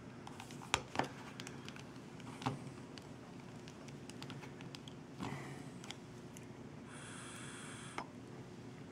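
Faint clicks and scrapes of a metal Taifun GT rebuildable tank being handled and threaded onto a box mod, with two sharp clicks close together about a second in and a brief hiss about seven seconds in.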